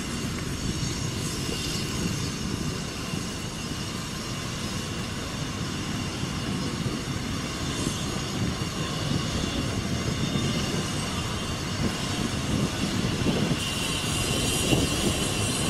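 Wind buffeting the microphone: a steady, gusty rumble, with a thin high whine that gets louder about two thirds of the way through.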